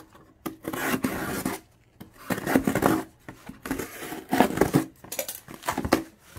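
Stiff cardboard being cut and worked by hand to make a lid, in about four rough, noisy strokes of about a second each.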